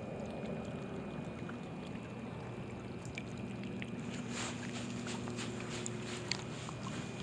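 Small waves lapping at the shoreline under a steady outdoor hush, with a scatter of light clicks and rustles starting about four seconds in.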